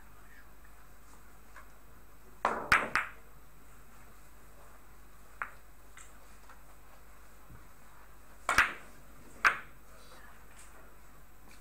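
Hard ivory-like billiard balls clicking: the cue striking the cue ball, then quick ball-on-ball knocks as it caroms into the object balls, three sharp clicks about two and a half seconds in. A faint click follows around the middle, then two more loud clicks of balls colliding near the end.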